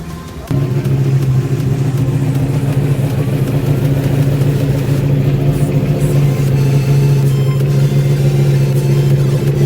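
A motorcycle engine running at a steady speed, setting in abruptly about half a second in and holding one even pitch with strong overtones.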